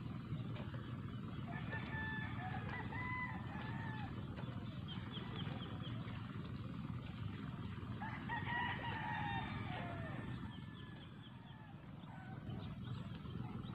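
A rooster crowing twice, about six seconds apart, over a steady low background noise.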